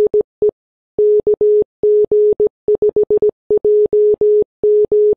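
Morse code (CW) sent as a single steady mid-pitched tone, keyed on and off in quick dots and dashes with short pauses between letters.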